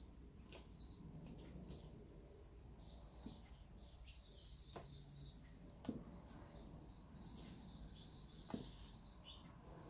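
Near silence: faint birdsong chirping in the background, with a few soft clicks now and then.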